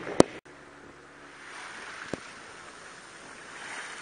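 Water washing along the hull of a wooden sailing boat under way, with wind on the microphone. A sharp click just after the start is the loudest thing, followed by a brief dropout, and a smaller click comes about two seconds in.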